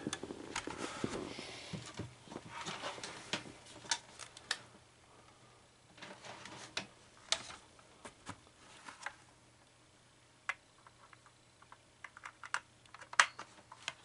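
Handling noise from an Arris cable box and its cords being moved and set down: rustling for the first few seconds, then scattered sharp clicks and taps with quiet gaps between them.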